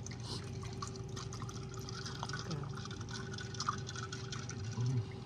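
Popping candy crackling in the mouth: many tiny, irregular pops going on steadily.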